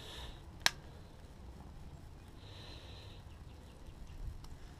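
A bottle of barbecue rib glaze being squeezed over meat on a grill, the sauce squirting out with a short, airy sputter near the middle. A single sharp click comes about half a second in.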